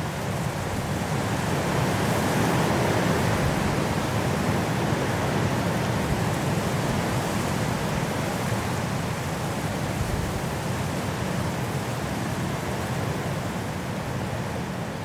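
Strong wind blowing through forest trees in a snowstorm: a steady rushing that swells a few seconds in, then eases slowly.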